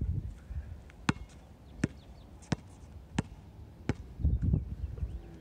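A basketball being dribbled on a hard outdoor court: five sharp bounces at an even pace, about one every 0.7 seconds. A short low rumble comes about four seconds in.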